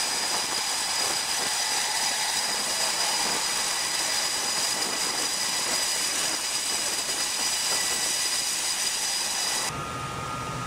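Jet engines running steadily on a carrier flight deck: a loud rushing roar with a high, steady whine. Near the end it cuts off abruptly to a quieter, lower hum.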